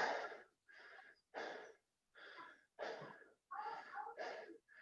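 A person panting hard, with rapid rasping breaths in and out, about eight in a few seconds, the first the loudest: out of breath from a round of burpees.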